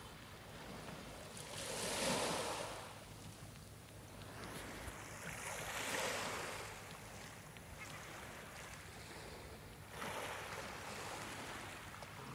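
Small waves washing onto a pebble beach, swelling three times about four seconds apart.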